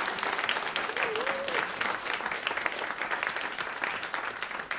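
Live audience applauding at the end of a song, the clapping slowly dying down.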